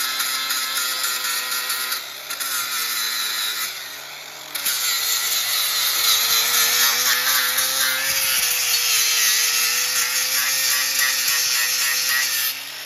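Cordless angle grinder with an abrasive disc grinding down a weld bead on square steel tubing: a steady motor whine with the hiss of the disc on the steel, which eases off briefly about two seconds in, again around four seconds, and near the end.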